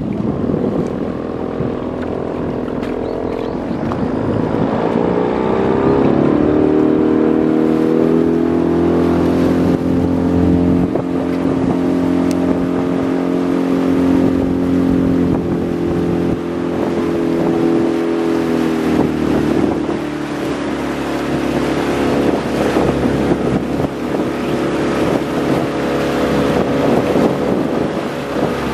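Small fishing boat's motor running under way; its pitch rises a few seconds in, holds steady, then drops back about two-thirds of the way through.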